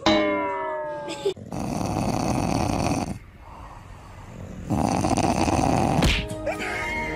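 A short falling pitched sound at the very start, then a dog snoring: two long, loud snores with a quieter breath between them.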